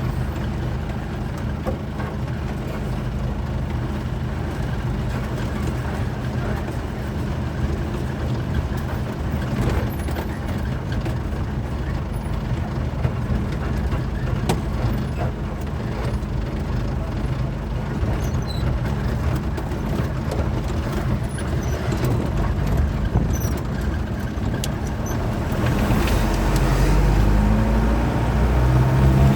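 Truck diesel engine running steadily on the highway with road and traffic noise; near the end the engine revs rise and it grows louder as the truck accelerates.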